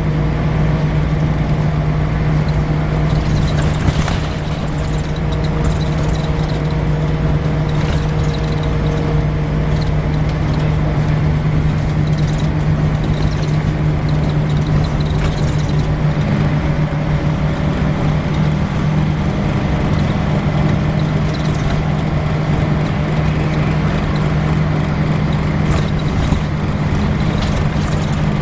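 Volvo B10BLE single-deck bus's diesel engine running at a steady, unchanging speed with a constant low hum, a faint higher tone fading out about a third of the way in and another coming in about halfway.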